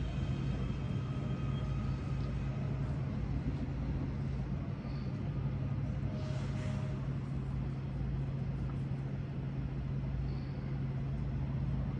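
Steady low hum of vehicles at a light-rail station, with a brief swell of hiss about six seconds in.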